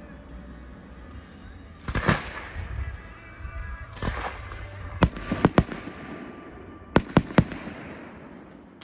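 Fireworks display: two broad bursts with a trailing crackle about two and four seconds in, then sharp bangs from the shells, a quick group of three around five seconds and another three near the end.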